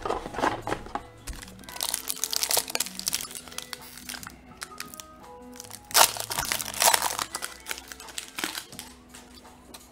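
Foil-lined booster pack wrapper crinkling as it is torn open and handled, in several spells, loudest about six seconds in, over quiet background music.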